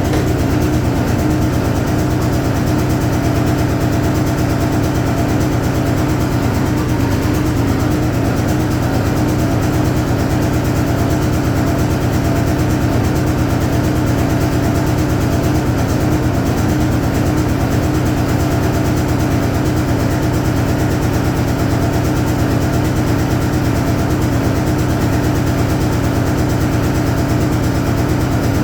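Hoover Automatic 820 washing machine running through a load, a loud steady motor hum that holds even throughout.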